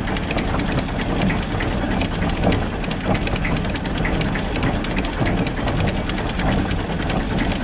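Massey Ferguson 35 tractor's diesel engine at low idle, driving a rotavator through the PTO shaft, with a steady, rapid mechanical clatter from the driveline. The PTO shaft is turning at about 140 rpm.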